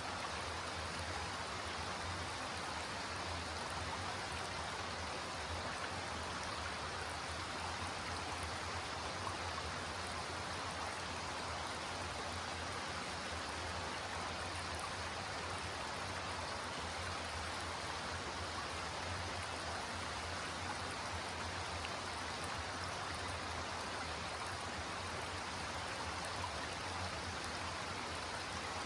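Shallow creek rippling steadily over flat rock ledges and stones, an even, unbroken babble of running water.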